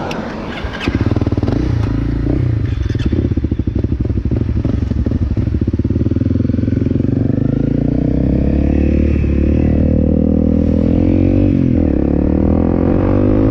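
Honda CRF250L's single-cylinder four-stroke engine with a few clicks at the start, jumping in loudness about a second in. It runs steadily, then pulls away and accelerates, its pitch rising and dropping back with each upshift near the end.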